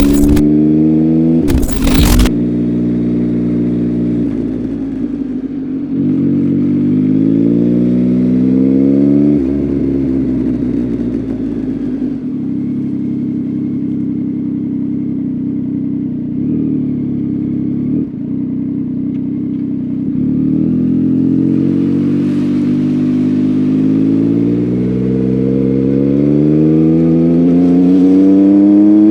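Yamaha MT-09's three-cylinder engine running through an Akrapovic full-system exhaust under riding load. It revs up, drops off sharply about nine seconds in, holds steady, then climbs slowly and steadily over the last several seconds. A brief loud burst comes about two seconds in.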